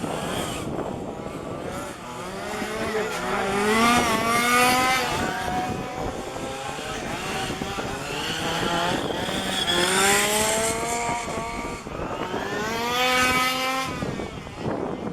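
Small two-stroke petrol engines of 1:5-scale RC cars revving on and off the throttle as the cars lap the track. The pitch rises and falls as cars pass, with three louder passes.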